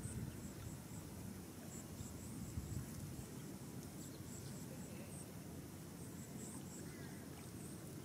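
Faint, high-pitched short chirps from a small animal, repeating irregularly a few times a second, over a low rumble.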